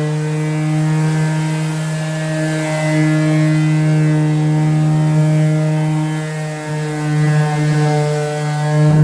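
Electric sander from Aldi running continuously with a steady motor hum, its pitch wavering slightly in the second half.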